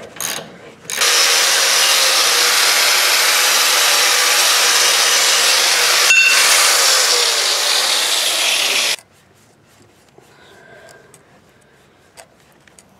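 Handheld electric power tool running hard for about eight seconds, with a short break about six seconds in, then cutting off sharply. A few short ratchet clicks come just before it starts.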